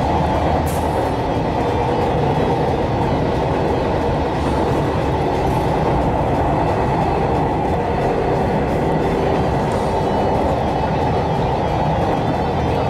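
Electric JR local train running along the track: a steady, even rumble of wheels on rails that holds without a break.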